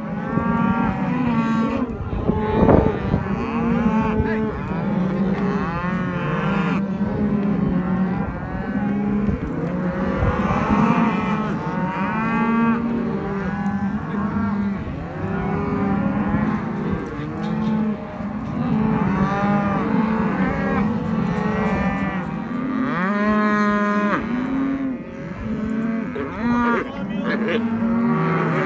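A penned herd of cattle mooing continuously, many calls overlapping.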